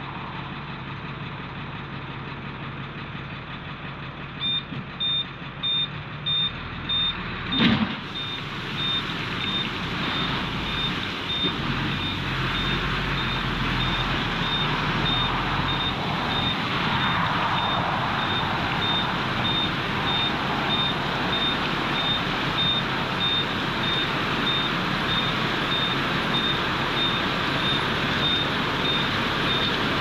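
Dump truck running with its back-up alarm beeping steadily from about four seconds in. A loud clunk comes near eight seconds, then a steady rushing noise as gravel spills out through the tailgate while the truck keeps moving.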